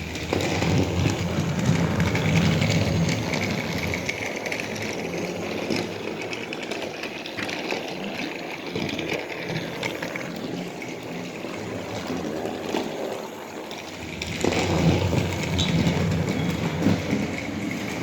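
A motorised toy train running on plastic track: a steady motor hum and wheel rattle that grows louder twice as the engine passes close by.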